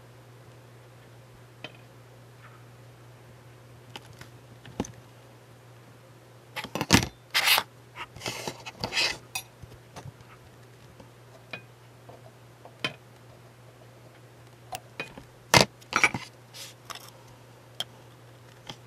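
Metal tweezers and small hobby tools clicking, tapping and scraping as they are handled and set down, in two busy clusters, one about a third of the way in and one late on, over a steady low hum.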